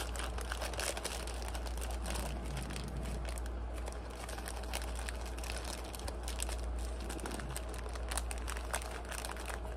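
Small clear plastic baggie being opened and rummaged through by hand, crinkling with irregular light crackles and clicks.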